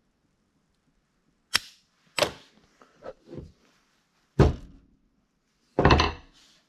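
Hammer blows flattening a melted nylon starter-rope knot: about six sharp, irregularly spaced strikes, starting about a second and a half in, the last one longer than the rest.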